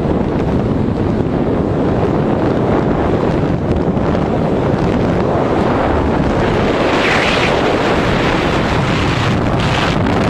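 Loud, steady rush of freefall wind buffeting the camera microphone during a tandem skydive.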